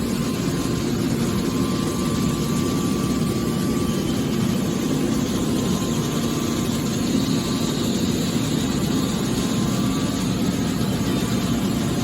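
Automatic hydraulic aluminum can baler running: a steady mechanical hum with a low drone from its motor and hydraulic pump, stepping up in level right at the start and then holding.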